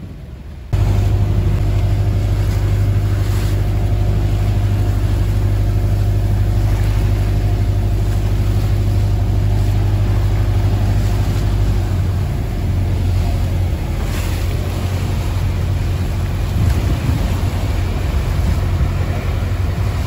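Tour boat's engine running steadily under way, a loud low drone mixed with the rush of water and wind past the hull. It comes in abruptly less than a second in.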